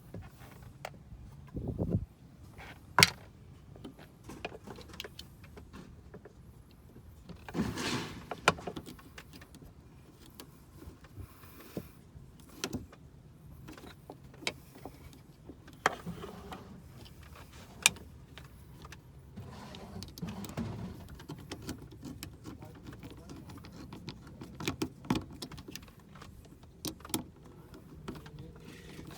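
Irregular clicks, taps and knocks of hand work on car parts, with a few sharper clacks and short scraping rustles in between.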